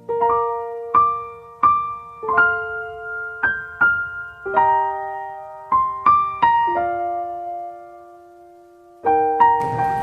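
Background music: a slow, gentle piano melody of single notes, each ringing out, with a pause before the music fills out again near the end.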